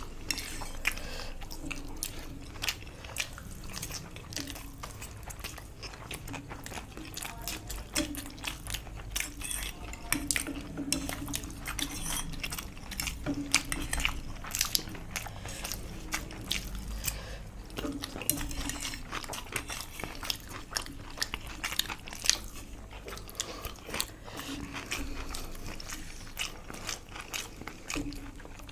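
People chewing and crunching mouthfuls of samosa and chowmein close to the microphone, with many small sharp clicks and crunches throughout.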